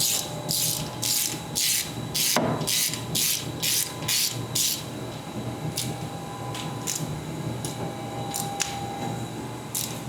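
Socket ratchet working the 19 mm transfer case drain plug: quick back-and-forth strokes with the pawl clicking, about two a second, for the first half, then a few single clicks. The plug is not backing out, which the mechanic takes for a thread issue.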